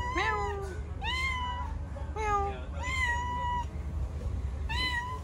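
Orange tabby cat meowing repeatedly, about five meows, each rising in pitch and then holding, over a steady low rumble.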